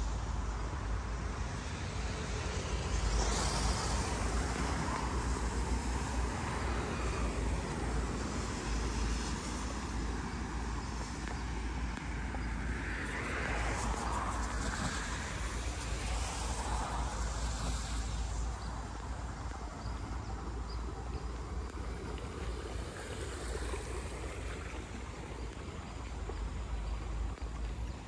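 Roadside ambience: road traffic passing, with a steady low wind rumble on the microphone.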